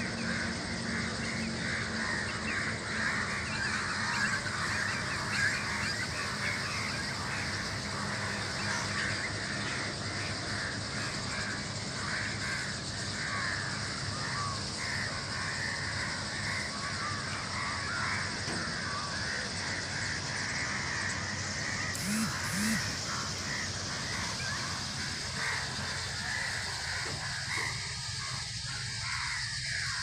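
A huge flock of small birds wheeling in a murmuration, calling all at once as a dense, continuous chatter of countless overlapping calls.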